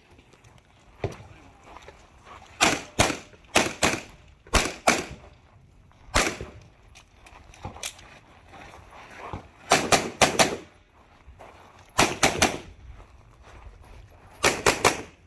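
Pistol shots fired in quick pairs and short strings of two to four shots, sharp cracks with pauses of one to several seconds between strings as the shooter moves between positions.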